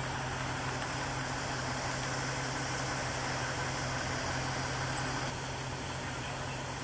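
An engine running steadily at idle: a constant low hum under an even hiss. The hiss eases slightly about five seconds in.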